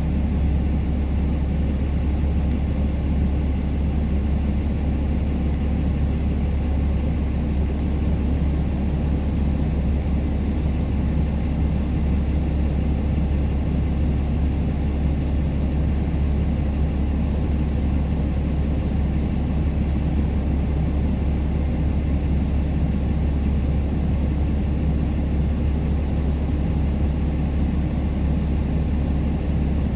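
Steady vehicle engine and road noise heard from on board while driving, a constant low drone that does not change.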